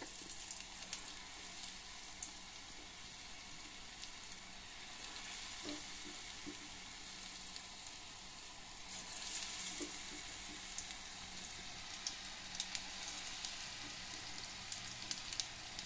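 Batter-coated baby corn pieces deep-frying in hot groundnut oil in a small aluminium kadai: a steady, fairly quiet sizzle of bubbling oil, with a few faint crackles.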